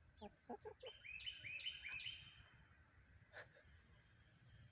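A few soft, low clucks, then a quick run of about six high chirps from a bird, all faint.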